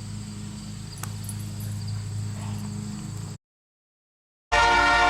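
A low steady hum with a single click about a second in, then a sudden second of silence. Near the end a diesel locomotive's air horn starts sounding loud, a chord of several pitches held steady.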